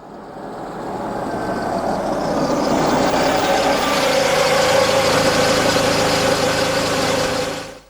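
Car engine running at low speed, growing louder over the first few seconds as the car approaches to park, holding steady, then stopping abruptly near the end.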